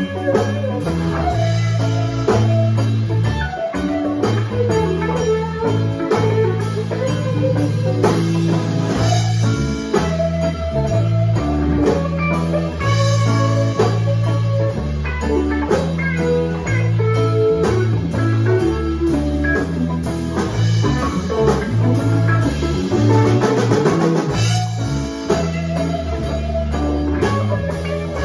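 A live band playing with two electric guitars, an electric bass and a Gretsch drum kit: bass notes changing every second or so under guitar lines, with steady drums and cymbals.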